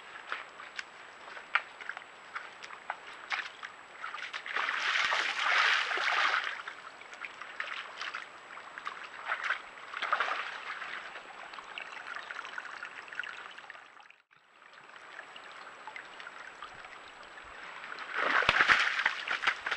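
A red deer hind wading and wallowing in a muddy pool: squelching steps and drips at first, then splashing and sloshing as she lies down in the mud and water. The splashing is loudest in three spells, about five seconds in, around ten seconds, and near the end.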